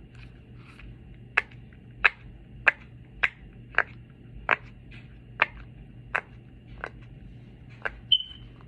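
Silicone pop-it fidget toy being popped bubble by bubble: about a dozen sharp pops, roughly one every two-thirds of a second.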